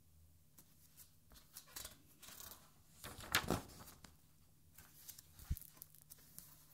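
A page of an art album being turned by hand: rustling paper, with the loudest swish about three and a half seconds in, then softer rustling and one soft low thump.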